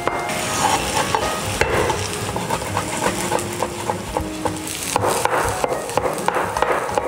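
Kitchen knife chopping smoked beef, garlic and onion on a wooden cutting board, a quick irregular series of knocks, over the steady sizzle of mushrooms frying in a pan.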